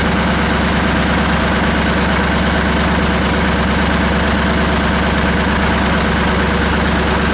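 1948 Buda 8-DC-1125 straight-eight diesel engine running steadily at idle.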